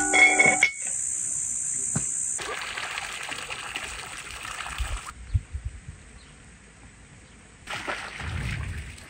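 Running water in two spells, one from about two and a half to five seconds in and a shorter one near the end, with a few soft knocks in between.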